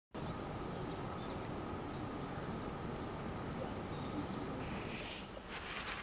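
Outdoor garden ambience: a steady low background noise with faint, scattered bird chirps, and a brief rustle about five seconds in.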